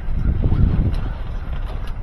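Wind buffeting the microphone in an uneven low rumble, over a small car engine running, with a faint click or two.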